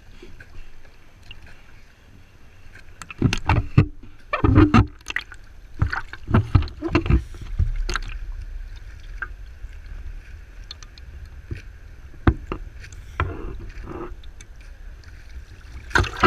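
Seawater splashing and sloshing against a camera housing held at the water's surface, with irregular splashes starting about three seconds in.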